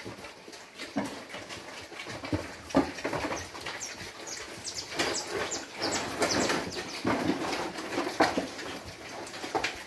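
A group of pigs in a pen making short, irregular grunts and squeals, which become more frequent about halfway through.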